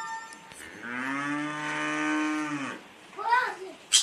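A cow mooing once, one long low call of about two seconds, followed about three seconds in by a brief, louder, higher-pitched call.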